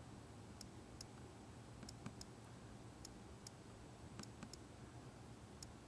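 Faint, irregular clicks of an iPod touch's on-screen keyboard as letters are typed, about nine in all.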